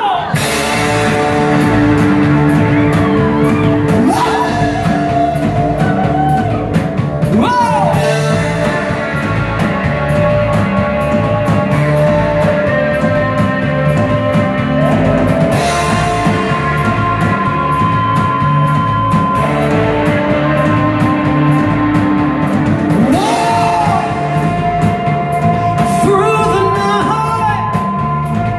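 Live rock band playing a song: distorted electric guitars, electric bass and a drum kit keeping a steady beat, with a man singing and yelling over them.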